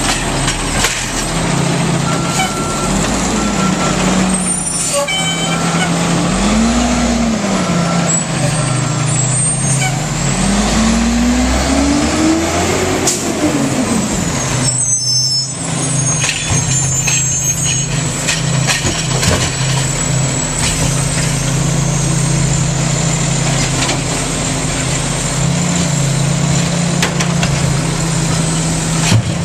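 Automated side-loading garbage truck running, its engine revving up and down in long rising and falling sweeps as the hydraulic arm grabs, lifts and empties a wheeled cart, with knocks and clatter from the arm and cart.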